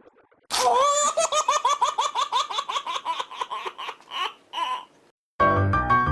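A laughter sound effect: high-pitched laughing in quick repeated bursts for about four seconds, starting about half a second in. Piano music begins near the end.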